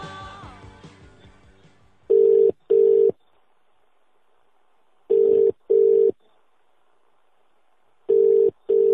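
The tail of a rock song fades out, then a British telephone ringing tone sounds three times: a double beep, two short steady tones close together, repeating about every three seconds as an outgoing call rings at the other end.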